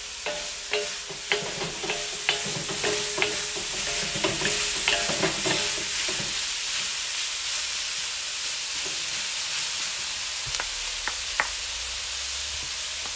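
Stir-fry sizzling hard in a hot Weber wok while wooden spatulas scrape and clack against the metal as the food is tossed. About halfway through the tossing stops and the frying sizzles steadily, with a couple of single knocks near the end.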